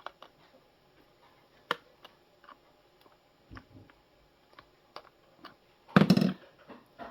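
Scattered light clicks and taps of plastic coffee-machine parts being handled and fitted together during reassembly, with one louder short burst about six seconds in.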